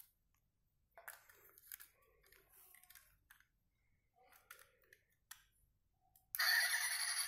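A plastic toy car handled over bubble wrap: light scattered rustling and small plastic clicks. About six seconds in, a sudden much louder, hissy sound starts and keeps going.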